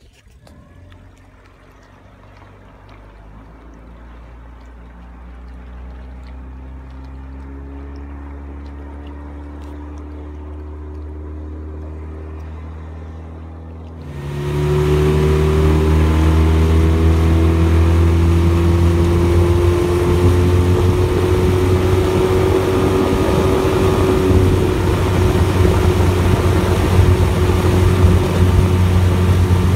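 Two-cylinder four-stroke 2017 Yamaha 20 hp outboard motor running under way. For the first half it is heard at a distance, slowly growing louder with its pitch edging up. About halfway through it turns suddenly much louder and steady, heard close up over the rush of water and wind.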